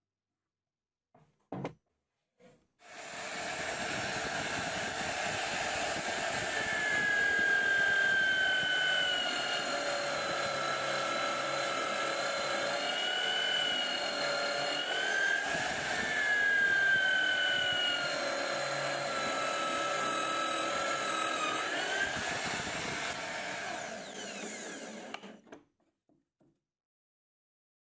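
Homemade drill press boring a wide, shallow hole into plywood. The motor's whine sags in pitch and recovers as the bit is fed into the cut, and it stops near the end.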